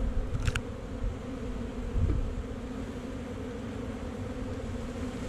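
Honey bees buzzing around an opened hive, a steady hum. A short sharp click comes about half a second in, and a low thump about two seconds in.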